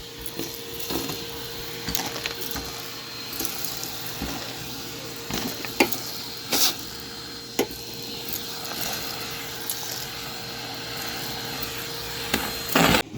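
Scattered light clicks and knocks of small objects being handled, with a few sharper knocks midway, over a faint steady hum.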